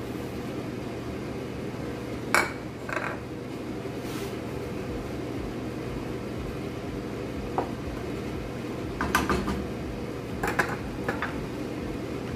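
Wooden spoon stirring in a large metal cooking pot, knocking and clinking against it a few times, sharpest about two seconds in and again in a cluster near the end, over a steady low hum.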